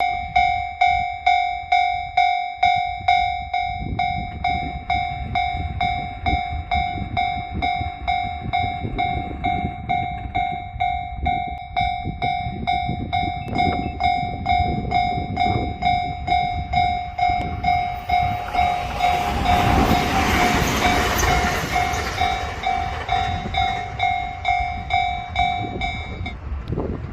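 Japanese level-crossing electronic warning bell ringing steadily, a little over twice a second, while a train passes over the crossing with a rising and fading rush and rumble about two thirds of the way through. The bell stops near the end as the crossing clears.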